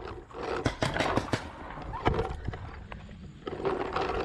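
Paintball markers firing: a quick string of sharp pops about a second in, with more single pops after it.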